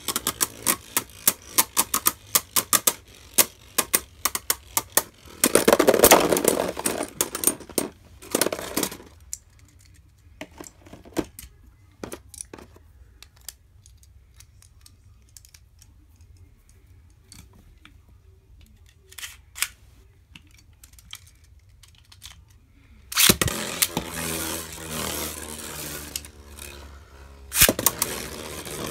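Two Beyblade Burst spinning tops, Arc Bahamut and Maximum Garuda, clattering against each other in a plastic stadium with rapid clicking collisions. After a quiet lull with a few scattered clicks, there is a sharp clack about 23 seconds in as a new battle starts, and the tops whirr and scrape around the stadium.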